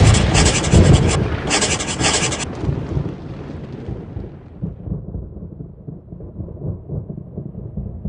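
A loud crackling crash that breaks off briefly twice in its first two and a half seconds, then a low rumble that slowly fades, a thunder-like sound effect.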